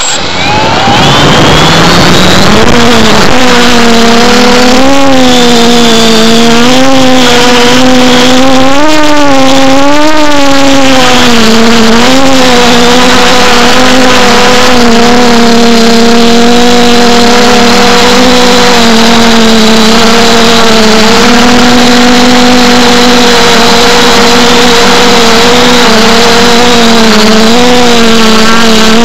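FPV multirotor drone's electric motors and propellers spinning up from rest with a rising whine over the first couple of seconds, then a loud steady buzzing hum in flight that wavers up and down in pitch as the throttle is worked.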